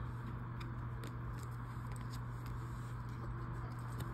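Trading cards being handled and laid down: a few faint light clicks and rustles of card stock over a steady low hum.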